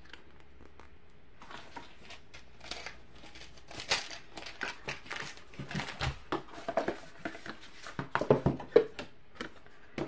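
Plastic bags of diamond painting drills crinkling and a cardboard kit box and paper sheets rustling as they are handled, with light knocks on the table. The crinkles start about a second and a half in, come irregularly, and are busiest near the end.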